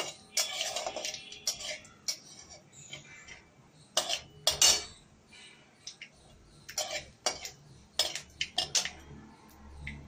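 A long metal spatula scraping and clinking against a metal kadai while stirring whole spices in hot oil. The strokes come irregularly, with sharper clinks around the middle and in the later part.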